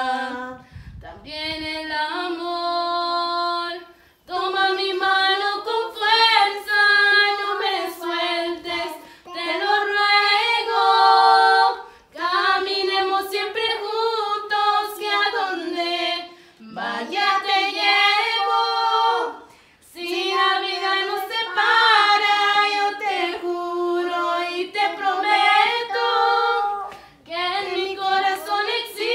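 A woman's solo voice singing a Spanish ballad unaccompanied, in long held phrases with short breaths between them.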